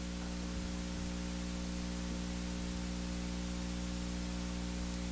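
Steady electrical hum with a layer of hiss, a set of low, unchanging tones from the sound system.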